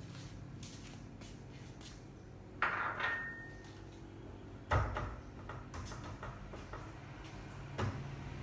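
Dishes and pots being handled and set down at a kitchen counter: three sharp knocks, the first with a brief metallic ring and the loudest about five seconds in, with smaller clinks between, over a steady low hum.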